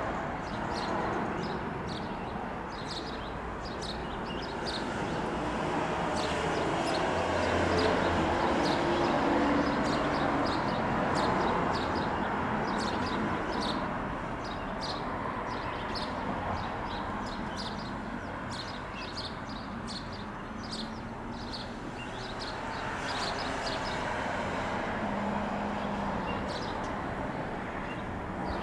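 Outdoor background noise: a steady rushing that swells and fades twice, with many short high ticks scattered throughout.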